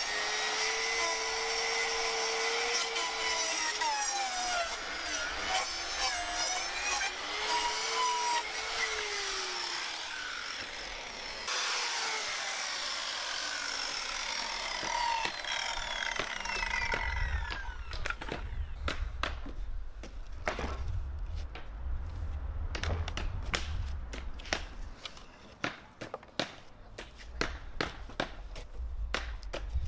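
Handheld electric circular saw cutting through wooden pallet deck boards, its motor whine dipping and rising as the blade loads up. About halfway through, the whine falls away as the blade winds down. Scattered knocks and clatter of wood on wood follow over a low rumble.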